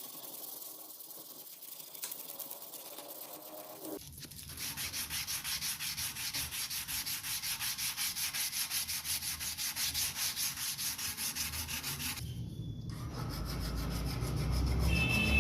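Abrasive paper rubbed back and forth by hand in steady strokes, about two to three a second, on a knife part being restored. The strokes are lighter for the first few seconds, then stop briefly near the end as a lower rumble builds.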